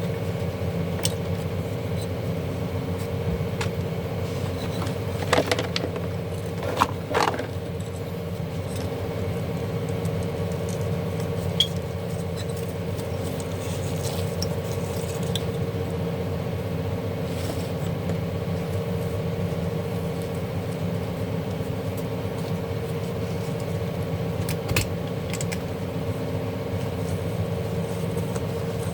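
Occasional light clicks and clinks of tools and small parts being handled while a garment steamer is taken apart, with a short cluster of them several seconds in, over a steady background hum.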